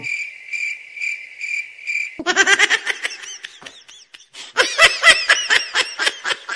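A steady, high-pitched chirping tone, pulsing about twice a second like a cricket, for about two seconds. Then high-pitched cartoon giggling comes in two runs of quick rising-and-falling laughs.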